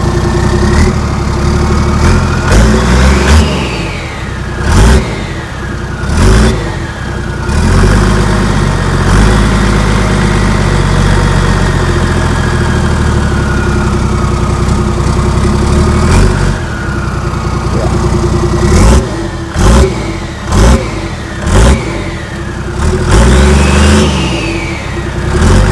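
Toyota Land Cruiser VX100 engine running and being revved repeatedly: several quick blips of the throttle, one longer hold at raised revs in the middle, and a further run of short blips near the end, settling back to idle between them.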